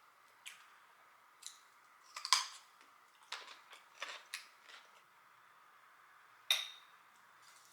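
Close-miked eating sounds: a string of short, sharp crunches and smacks from biting and chewing crispy fried chicken wings, the loudest about two seconds in and another strong one near six and a half seconds.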